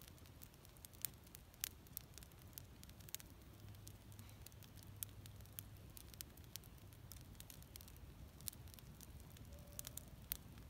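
Small wood campfire crackling faintly, with scattered sharp pops, a few louder ones standing out.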